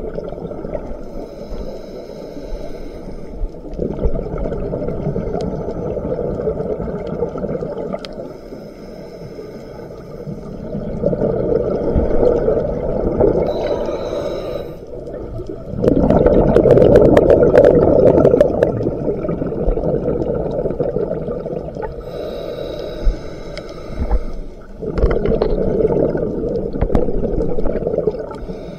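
Scuba diver breathing through a regulator underwater: a short hissing inhale, then a longer rush and crackle of exhaust bubbles, repeating about every ten seconds.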